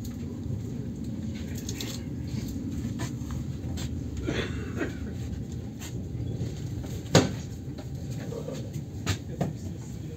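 Steady low rumble of an ES2G Lastochka electric train, heard from inside the carriage as it rolls along a station platform. A sharp knock comes about seven seconds in, and a couple of smaller knocks near the end.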